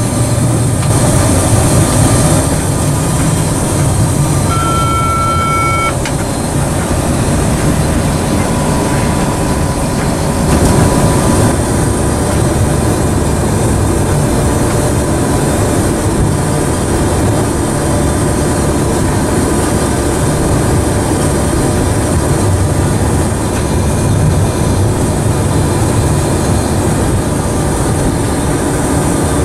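Train running along the line, heard from the driver's cab: a steady rumble of wheels on rail. About four and a half seconds in, a short electronic beep sounds for about a second and a half.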